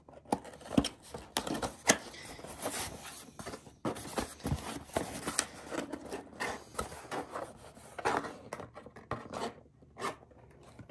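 Box and packaging being handled: irregular scraping and rubbing with scattered clicks and knocks.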